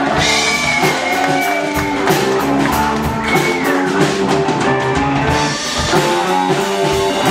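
Live rock band playing: guitar over a drum kit keeping a steady beat, with some notes sliding in pitch.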